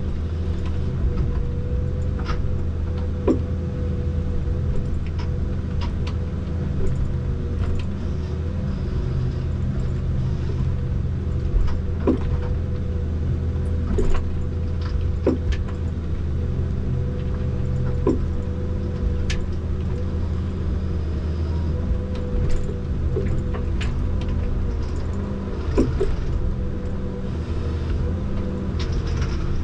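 Komatsu 901 forest harvester running steadily, heard from inside the cab: a low diesel drone with a steady whine over it. Scattered sharp cracks and knocks come as the C93 harvester head grips, fells and feeds the trees.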